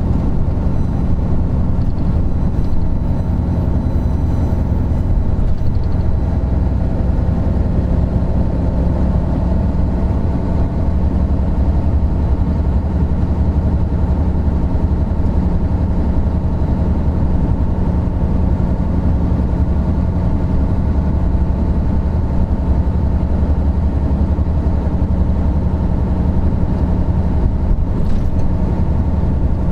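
Isuzu Gala III coach's 12PE1 V12 diesel engine running steadily as the coach drives along, a constant deep drone.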